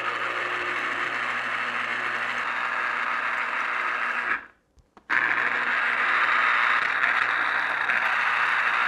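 Electric citrus juicer's motor whirring as a lemon half is pressed onto the spinning reamer. It stops abruptly about halfway through when the lemon is lifted, then starts again at once under the next lemon.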